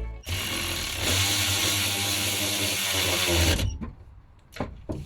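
Handheld power tool running steadily for about three seconds, tightening the drive shaft bolts, then cutting off abruptly. A few light metal clinks follow.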